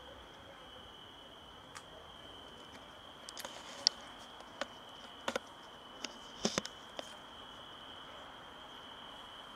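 Insects trilling steadily in one high, unbroken tone, with a scattering of short sharp clicks and taps from about three to seven seconds in.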